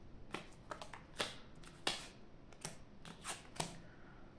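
Playing cards being dealt from a hand-held deck and laid onto piles on a table mat: a quick, irregular series of about ten short card flicks and slaps.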